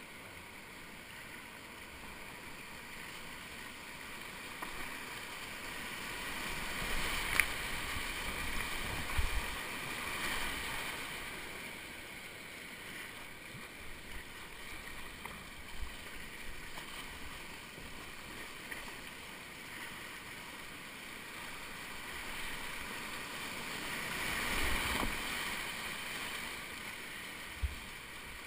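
Whitewater rushing around a kayak running a rapid, with paddle strokes splashing in the current. The rush swells louder about a quarter of the way in and again near the end, and a couple of sharp knocks stand out.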